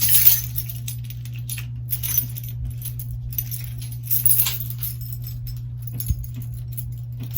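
Small metal clicks, clinks and scrapes of repair tools and parts being handled while a phone's motherboard is pried out of its frame, over a steady low hum.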